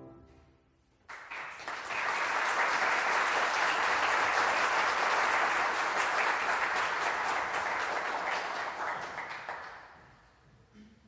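Audience applauding, starting suddenly about a second in as the last grand piano chord fades, holding steady, then dying away near the end.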